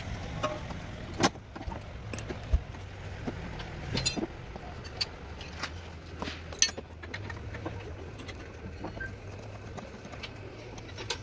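A few sharp knocks and clinks from tools and suspension parts being handled during strut and CV axle work, over a steady low hum.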